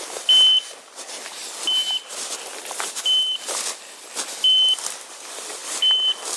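A bird dog's beeper collar in point mode, sounding a short high beep about every second and a half, five times: the signal that the dog has stopped and is holding point. Rustling runs underneath.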